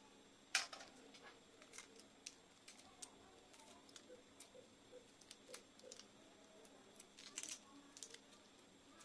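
Faint crackling and clicking of a boiled egg's shell being peeled by hand, with a sharper crack about half a second in and a cluster of crackles about two seconds before the end.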